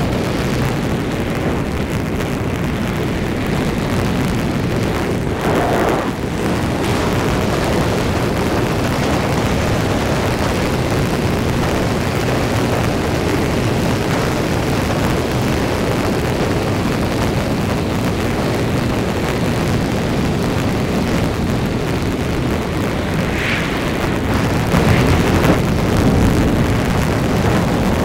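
Road, engine and wind noise from a vehicle driving along a highway, picked up by a GoPro 7 mounted on it: a loud, steady rumble that grows a little louder near the end.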